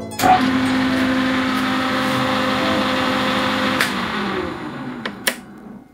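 Celtic 14 metal lathe's electric motor and headstock starting up suddenly and running with a steady hum. After about four seconds it winds down, falling in pitch, as it is switched off at the emergency stop, and a couple of clicks follow near the end.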